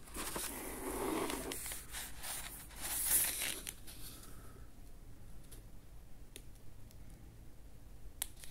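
Paper pages of an old book being turned and smoothed flat, rustling for the first few seconds and loudest about three seconds in, then only a few faint handling ticks.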